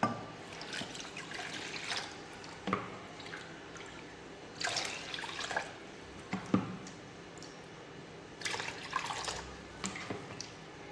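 Water poured from a cup into a pan in separate short pours, the longest about halfway through and near the end, with a few light knocks between them.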